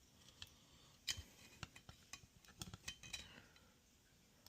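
Faint, scattered clicks and taps of multimeter probe tips being placed against components on a circuit board. There are about half a dozen small clicks, with the clearest one about a second in.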